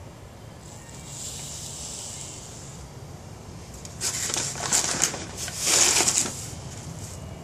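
Granulated sugar poured from a measuring cup into a plastic funnel, a soft hiss. From about four seconds in, a paper sugar bag rustles loudly in two surges as a hand scoops a measuring cup into it.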